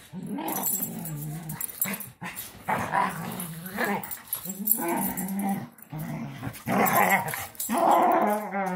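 Dogs play-wrestling, a German shorthaired pointer among them: a string of play growls and grumbling noises in bouts of about a second, with short breaks. A longer, steadier growling moan comes near the end.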